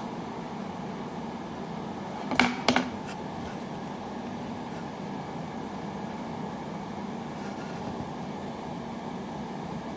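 Steady room hiss and hum from a live-stream microphone, with two sharp taps close together about two and a half seconds in.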